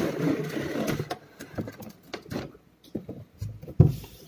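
Clear plastic toy tray sliding out of a cardboard box with a rustle, then scattered clicks and crinkles of the plastic and a loud thump near the end as the tray is set down on the table.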